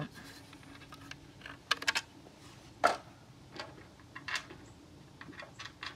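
A few scattered light clicks and taps of hard plastic and metal, as the electric scooter's deck panel is lifted off its frame and handled. The sharpest click comes about three seconds in.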